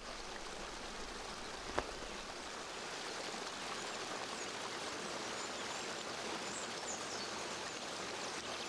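Steady rush of a forest stream, with one sharp click about two seconds in and a few faint high chirps in the background.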